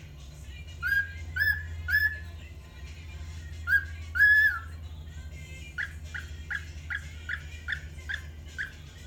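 Cockatiel whistling: three short whistled notes, a longer held note, then a quick run of short chirping notes about three a second, over a steady low hum.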